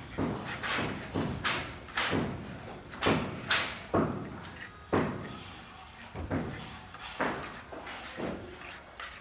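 Hammering: a run of sharp knocks at irregular spacing, roughly two a second, each with a short ring-out. The blows are loudest in the first half and grow softer after about five seconds.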